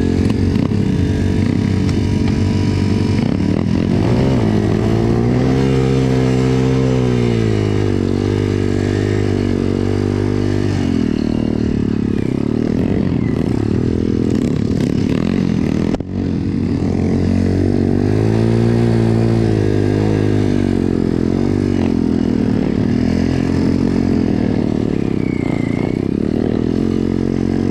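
BSE MX 125 pit bike's single-cylinder four-stroke engine being ridden, revving up and down repeatedly under throttle, with a sudden brief break about halfway through.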